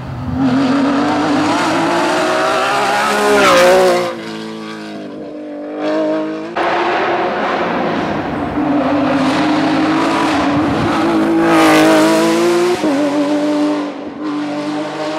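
Porsche 911 GT3 rally car's flat-six engine at high revs. The engine climbs in pitch for about three seconds, then drops away about four seconds in. Later a second run holds high revs for several seconds before falling off near the end.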